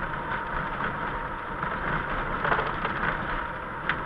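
Car running along a wet street, heard from inside the cabin: a steady mix of engine hum and tyre noise on the wet road.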